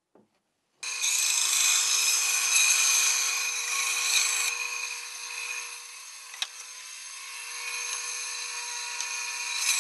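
Benchtop bandsaw running and cutting a curved notch in a wooden board, starting abruptly about a second in. The sound drops after about four and a half seconds as the cut ends and the blade runs free, with a single click about six and a half seconds in, and it builds again near the end.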